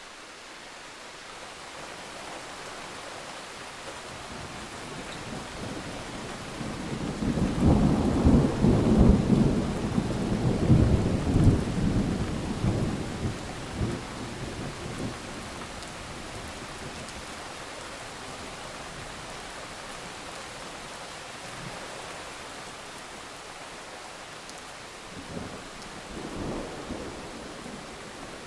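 Steady rain falling while thunder rolls in: a long, loud, deep rumble builds from about six seconds in, peaks for several seconds and dies away, with a fainter second rumble near the end.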